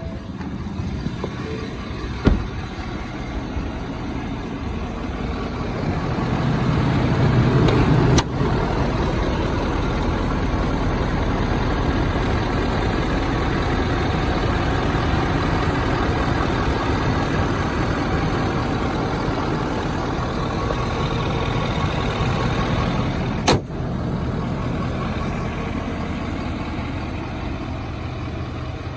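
Ford 6.7L Power Stroke V8 turbo diesel idling steadily, a little louder for a couple of seconds about six to eight seconds in. Sharp clicks come twice, about eight seconds in and near the end.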